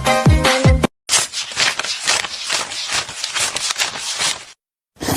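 Dance music cuts off abruptly about a second in. It is followed by about three and a half seconds of rustling and scraping with many small clicks.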